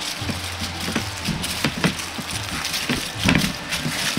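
Aluminium foil crinkling and crackling irregularly as hands press it flat over a tray of oatmeal granola bar mixture to shape it.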